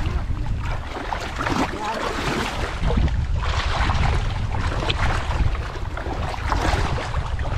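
Wind buffeting the microphone over water splashing and sloshing as a net is worked through a shallow creek.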